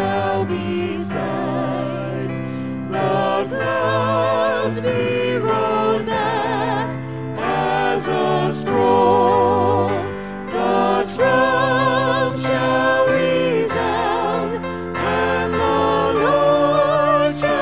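Worship song: singing that holds long notes with vibrato over instrumental accompaniment with a steady low bass.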